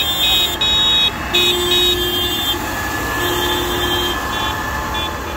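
Farm tractors driving past with their engines running, and a horn sounding twice in a low tone for about a second each. High-pitched tones come and go on and off throughout.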